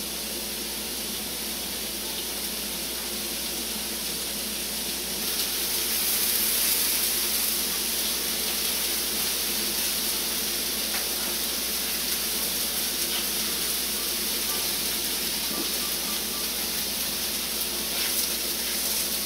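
Polenta wedges sizzling in butter on a hot griddle, a steady frying hiss that gets a little louder about five seconds in.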